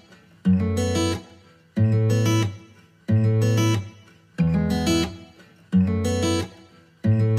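Background music: the same short chord struck again and again, about once every 1.3 seconds, each held briefly and then cut off.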